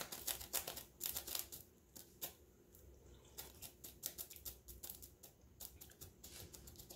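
Faint mouth clicks and lip smacks of someone tasting soup, in quick runs over the first two seconds, then sparser.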